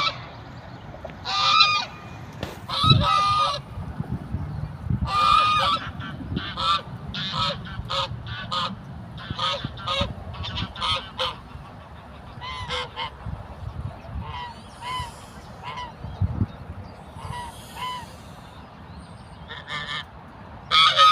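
African geese honking over and over, a long run of short calls in quick succession, the loudest in the first few seconds and again near the end. These are the calls of agitated, aggressive geese.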